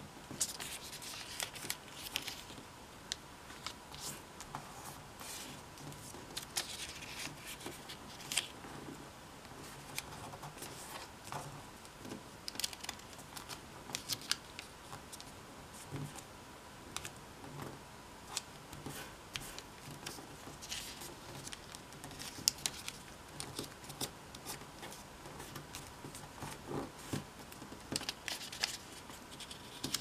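A 15 cm square of origami paper being folded and creased by hand: many short papery rustles and scrapes as fingers press and slide along the folds.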